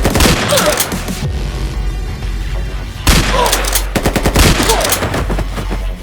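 Two bursts of rapid gunfire, one at the start and another about three seconds in, over electronic background music with a steady bass.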